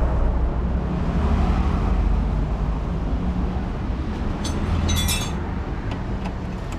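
Low, steady rumble of a running vehicle engine, with a quick cluster of metal clinks about four and a half to five seconds in.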